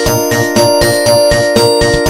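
Samsung SGH-X480 mobile phone ringtone playing: a synthesised electronic tune with held notes over a steady beat of about four strokes a second.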